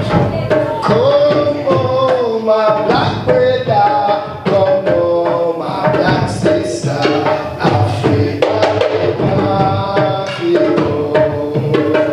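Music with a steady hand-drum rhythm under a gliding melody line.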